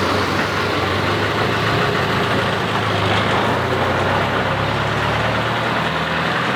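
An old car's engine idling, its pitch rising a little about five seconds in as the car moves off.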